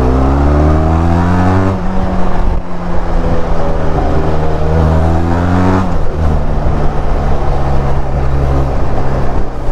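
Benelli TRK 502's parallel-twin engine through its stock exhaust, accelerating through the gears. The pitch rises for about two seconds and breaks at a shift, holds, climbs again for about two seconds, then drops at a second shift about six seconds in and settles into steady running.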